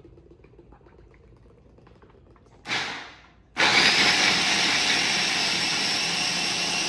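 Kitchen blender switched on in a short pulse about two and a half seconds in, then run steadily from about three and a half seconds in, a loud, even motor whir.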